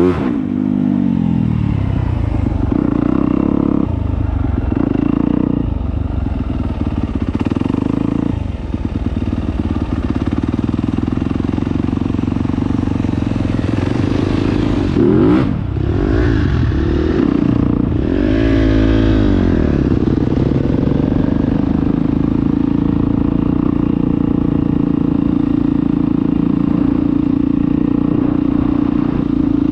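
Dirt bike engine running, heard from on the bike: the revs fall and climb several times in the first two-thirds, then hold steady toward the end.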